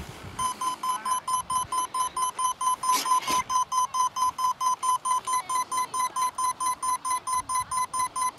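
Electronic speed controllers of a twin-motor foam RC model plane beeping through the motors: a steady run of short, high beeps, about five a second. A brief rustle about three seconds in.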